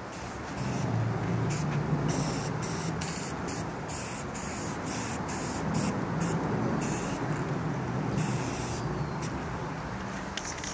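Aerosol spray-paint can hissing in a series of short bursts as black outline is sprayed onto a concrete wall. A low steady rumble runs underneath.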